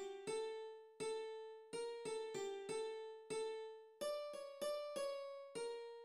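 Instrumental background music: a simple melody of single notes, each struck sharply and left to fade, coming a little faster after the first couple of seconds.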